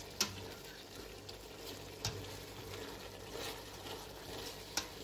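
Diced chicken breast sautéing in oil in a steel pot: a steady sizzle, with a stirring utensil knocking sharply against the pot three times.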